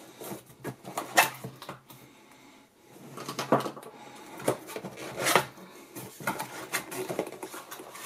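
Cardboard product box being opened by hand: a seal sticker peeled off and the end flap pulled open, in irregular scrapes, rustles and sharp clicks of cardboard, with a short lull about two seconds in.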